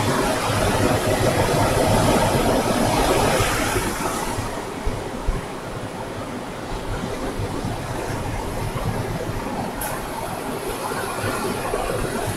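Ocean surf breaking and washing up on a sandy beach, a steady rushing hiss of waves. It swells louder over the first few seconds as a wave comes in, then settles back to an even wash.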